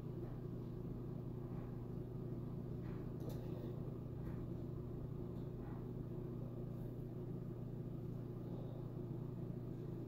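Steady low background hum, with a few faint, soft ticks scattered over it.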